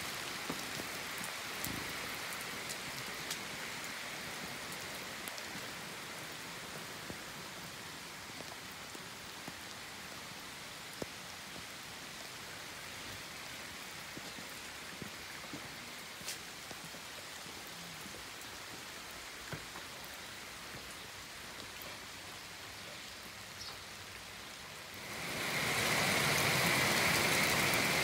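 Heavy rain falling steadily on a wet paved patio, with scattered individual drips. About 25 seconds in it becomes much louder, as rain hitting a corrugated conservatory roof comes to the fore.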